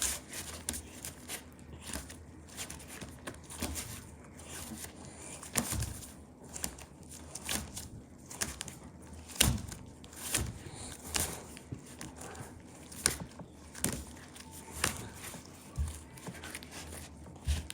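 Slime being pressed and worked by hand, trapped air bubbles popping in irregular sharp crackles and clicks, one or two a second, the loudest about halfway through.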